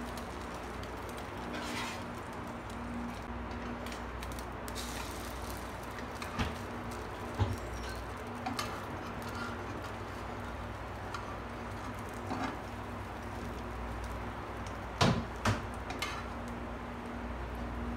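Metal kitchen tongs clicking and knocking against a nonstick frying pan while turning a slice of egg-dipped bread. A few scattered knocks over a steady low hum, the loudest pair about fifteen seconds in.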